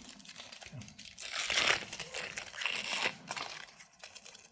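Trading-card booster-pack packaging crinkling in the hands as a pack is opened, with two louder spells of crinkling about a second in and around three seconds in.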